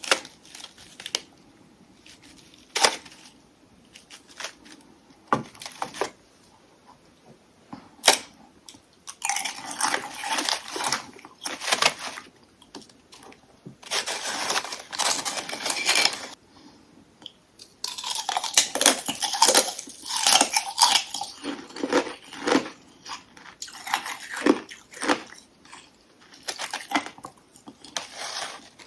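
Close-up biting and chewing of hollow ice sticks coated in powdery freezer frost. A few sharp cracks come first, then long runs of dense crunching.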